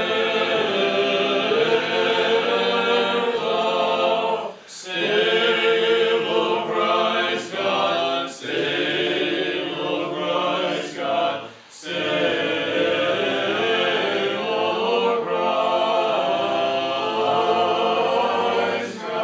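Church choir and congregation singing an Orthodox hymn a cappella in chant style, with short breaks between phrases, the longest about four and a half and twelve seconds in.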